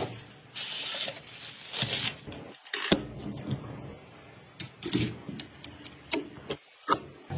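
Clicks, taps and rustling of computer parts being handled and fitted, in short edited snippets with abrupt cuts between them.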